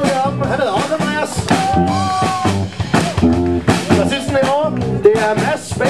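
Live blues band playing an old rock-and-roll number, with drum kit and electric guitars and a melody line over them.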